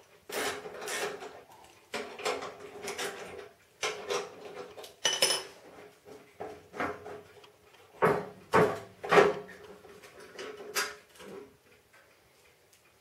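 Hand tools knocking and scraping on the steel auger housing of a Craftsman 28-inch snow thrower as its mounting bolts are worked loose. The metal knocks are irregular, each with a short ring, loudest about eight to nine seconds in, and they die away near the end.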